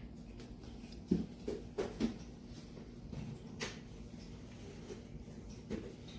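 Several light knocks and clicks, as of hard objects being handled, over a steady low hum.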